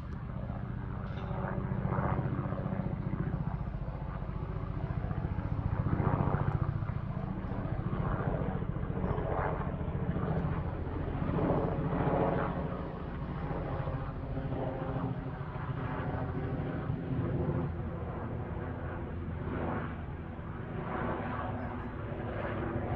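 Bell 206 JetRanger single-turbine helicopter passing overhead: a steady rotor chop with turbine noise that swells and fades gently as it flies over.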